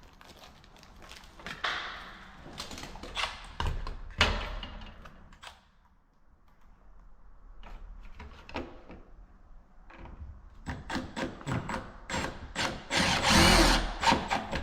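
Hands-on tool work: a string of knocks, clicks and handling noises, with a louder, rougher stretch lasting about a second near the end.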